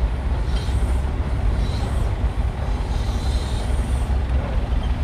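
Thew Type O steam shovel running as it is moved, a steady low rumble with faint hissing of steam.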